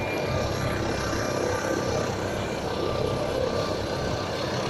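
Air ambulance helicopter, an MD 902 Explorer, running on the ground: a steady rotor and engine rumble with a thin, steady turbine whine above it.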